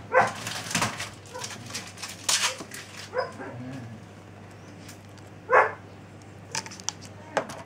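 A kitten crying out in short, distressed mews, about four times, the loudest a little past halfway, while it is held down and given an injection into the scruff, with handling rustles in between.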